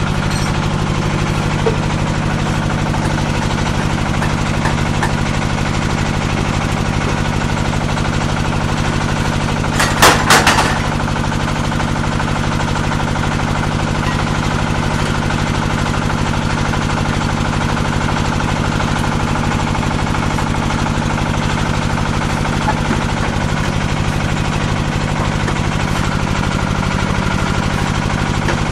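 Diesel engine running steadily, driving a paving-block making machine. About ten seconds in, a quick run of four or five loud knocks.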